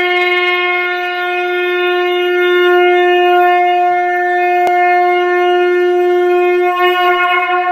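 Conch shell (shankha) blown in one long, steady held note that wavers slightly near the end.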